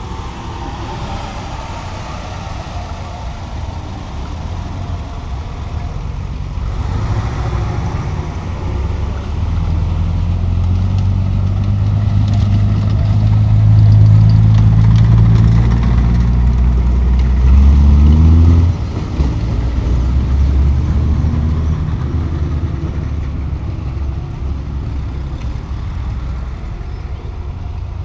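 Engines of WWII German military vehicles driving past on a dirt track, with a Kettenkrad half-track motorcycle passing close. The engine sound builds to its loudest about halfway through. A short rising rev follows, then the sound drops suddenly and fades as the vehicles move off.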